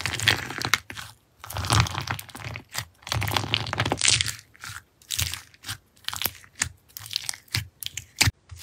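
Fingers pressing and poking into slime topped with clay sprinkles and beads, giving irregular bursts of crunching and crackling with short gaps between them.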